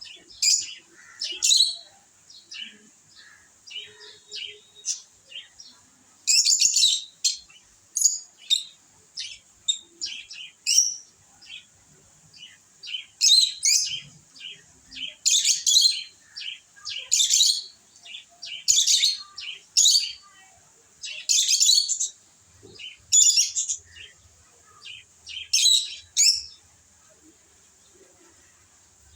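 Lovebirds chirping: a long run of short, sharp, high calls that come in quick clusters every second or two, over a steady faint high hiss.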